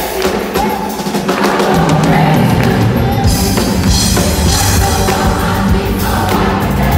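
Gospel choir singing with a live band of keyboard and bass guitar. The bass drops out briefly at the start and comes back in about two seconds in.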